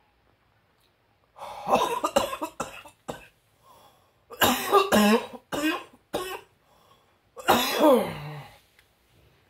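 A person's voice making wordless sounds in three loud bursts, coughing and gasping, the last ending in a long falling moan.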